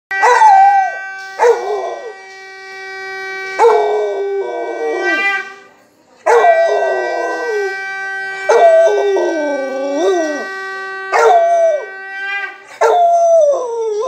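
A Rottweiler howling along to a conch shell being blown. The conch holds one steady note in two long blasts with a short break about six seconds in. Over it the dog gives about seven long, wavering howls that slide down in pitch, and the last howl goes on alone after the conch stops.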